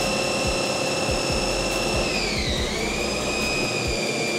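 CNC lathe taking a facing cut on a spinning 3/4-inch stainless steel bar under coolant spray: a steady high whine over a hiss. The whine dips in pitch about two and a half seconds in and comes back up.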